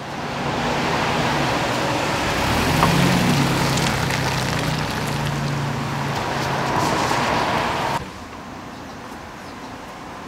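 Nissan van driving up and pulling in, engine and tyre noise with a low engine note that wavers midway; the sound drops off sharply about eight seconds in, leaving a quieter background with a few faint clicks.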